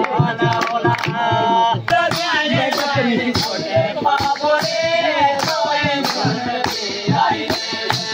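A group singing a Pahari folk song together over a steady beat of hand clapping.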